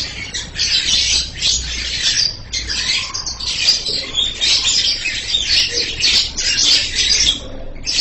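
Lovebird singing a long, shrill 'telolet' chattering song: rapid high-pitched squeaky trills run almost without a break, pausing briefly about two and a half seconds in and again near the end.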